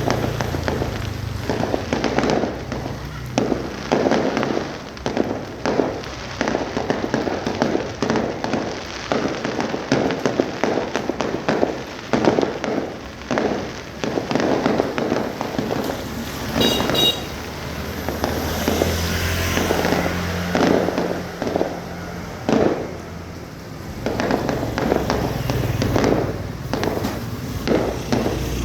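A fireworks display with shells bursting in quick, irregular succession: a continuous barrage of booms and crackles.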